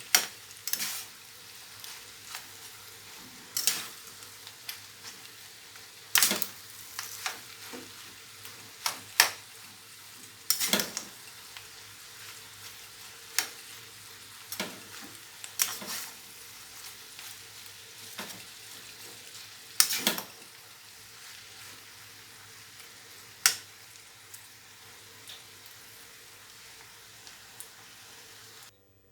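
Macaroni stir-frying in a frying pan: a low, steady sizzle with a utensil scraping and knocking against the pan at irregular intervals as everything is stirred together.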